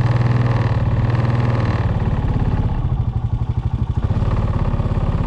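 Four-wheeler's engine running at a steady, low pitch under way, with a fast pulsing beat in its loudness.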